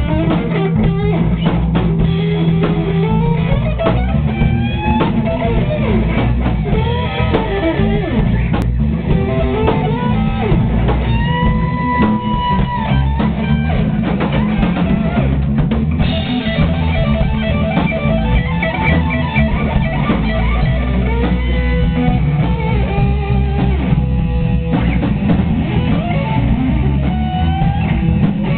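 A live band playing together on fretless bass, electric guitar and drum kit, with lead lines that slide and bend in pitch over the drums.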